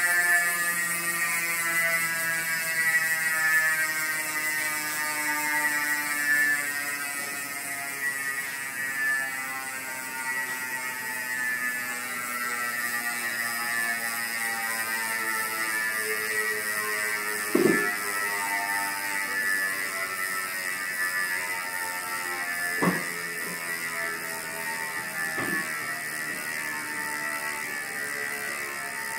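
Chris King rear hub freewheeling as the spun rear wheel coasts: a loud, steady buzz from its ratchet whose pitch slowly falls as the wheel slows. Three brief knocks in the second half, the first the loudest.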